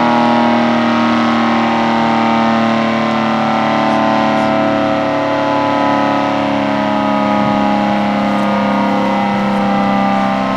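ACA Screamer S10 outdoor warning siren, wired in reverse, sounding a steady full-alert tone. The level swells and eases gently about every two seconds.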